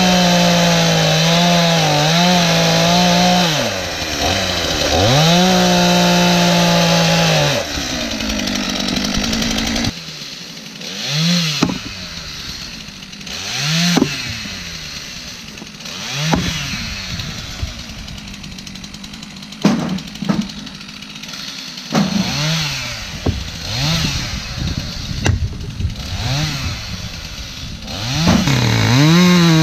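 Two-stroke Stihl chainsaw cutting through logs at full throttle, then dropping back to idle. For the rest of the stretch it revs up and down in short bursts, farther off, while a splitting axe strikes logs with several sharp cracks. Near the end the saw runs at full throttle again.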